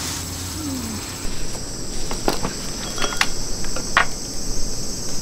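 Steady high chirring of summer insects. From about two seconds in, a few sharp clicks of chopsticks and dishes at the table join it.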